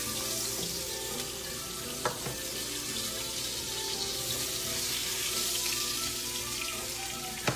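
Flour-dredged salmon pieces sizzling steadily in hot oil in a skillet, with a single light click about two seconds in.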